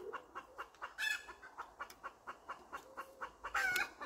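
Chickens clucking in a quick, steady run of short clucks, with two louder, higher calls: one about a second in and one near the end.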